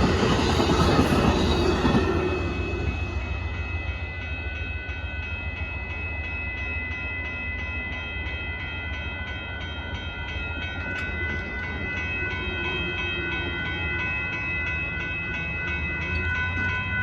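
Amtrak passenger train passing with loud rumble and wheel noise that fades over the first two seconds or so. Then a grade-crossing bell rings on steadily, about three strikes a second, over the low rumble of the departing train.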